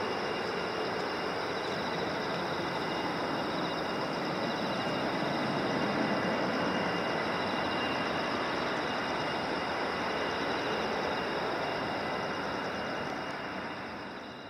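Steady jet engine noise from a Boeing 777-200ER's two turbofans as the airliner climbs away after takeoff, fading out near the end.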